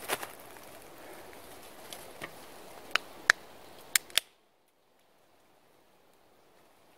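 Aluminium beer can being opened by its pull tab: a few sharp clicks about three to four seconds in, the loudest near the middle of them. The sound then cuts off suddenly to a faint hush.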